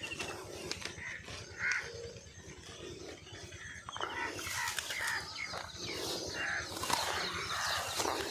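Outdoor ambience with birds calling in short separate calls, a few sharp clicks, and a hiss that grows louder about four seconds in.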